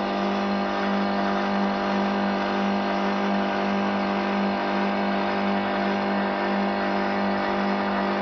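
Nanobubble aerator's electric motor running, a steady unchanging hum with a strong low note and a hiss over it.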